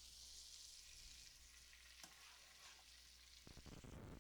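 Chicken frying in melted butter in a skillet: a faint, steady sizzle, with a few soft knocks near the end.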